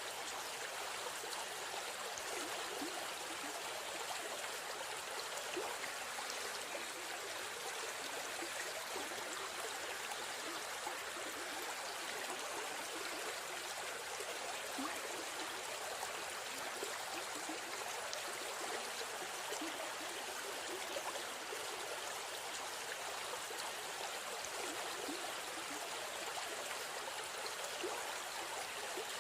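River stream flowing steadily, an even rush of running water with small splashes and trickles.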